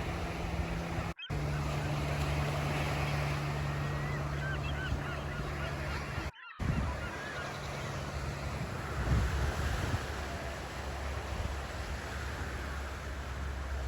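Ocean surf washing onto a beach, with wind on the microphone and a steady low hum under it. The sound cuts out abruptly twice, about a second in and again about six seconds in, and a few faint high chirps come around four to five seconds in.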